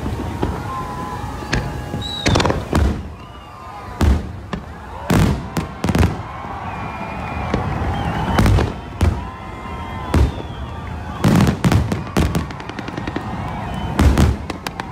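Fireworks display: shells bursting in loud bangs at irregular intervals, some in quick pairs, over a steady background rumble.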